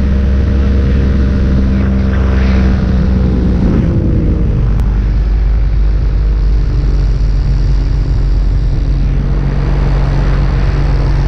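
Paramotor engine and propeller running steadily in flight, its pitch dropping a step about four seconds in and then holding at the lower speed.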